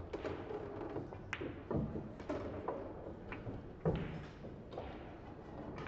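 Pool hall ambience: scattered sharp clicks and dull thumps of pool balls and handling, the heaviest thump about four seconds in, over a low murmur.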